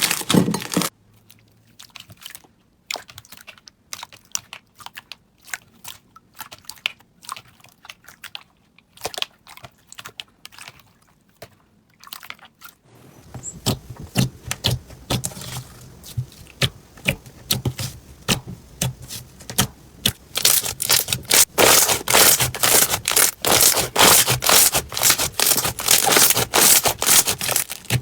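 Slime being squeezed and stretched by hand, crackling and popping in many small clicks. Sparse clicks with quiet gaps at first; about halfway through a steady background hiss comes in and the crackling grows dense and louder toward the end.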